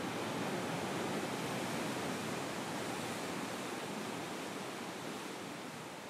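Steady, even hiss of ocean surf and breaking waves, easing slightly toward the end.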